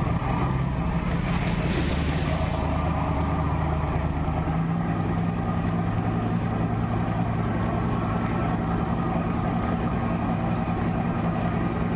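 Motorboat engine running steadily as the boat moves along, a constant low drone with a hiss over it.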